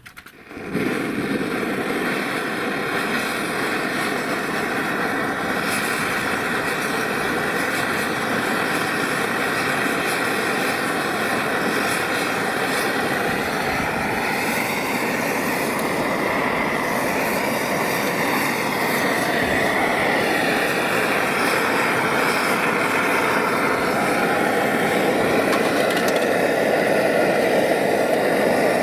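Small battery-powered electric air pump running steadily with a motor-and-fan hum. It switches on about half a second in, its pitch wavers in the middle and it grows slightly louder toward the end.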